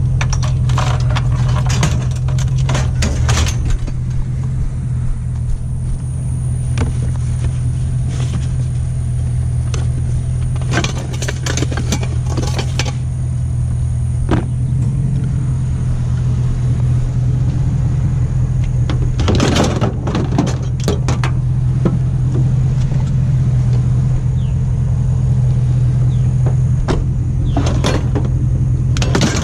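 Truck engine running with a steady low drone, with several short bursts of clicking and clattering over it.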